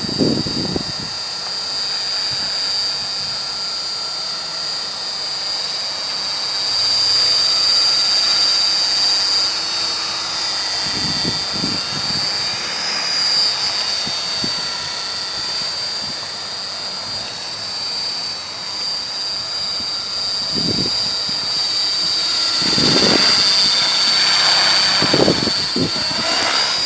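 Electric Esky Belt-CP radio-controlled helicopter in flight: a steady high-pitched whine from its motor and rotor blades, louder at times as it passes. Gusts of wind now and then buffet the microphone.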